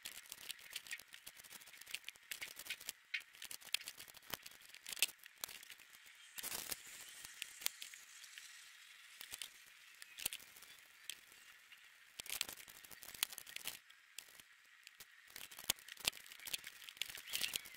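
Faint crinkling, rustling and small clicks of gloved hands handling painter's tape, a rag and plastic badges on a cardboard surface, with tape being pulled from the roll near the end.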